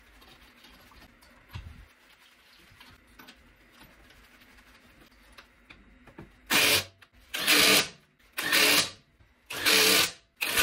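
Cordless power tool run in four short bursts about a second apart in the second half, driving the wheel nuts back on a refitted front wheel, with a fifth burst starting at the end. Before that, only quiet handling with one light knock.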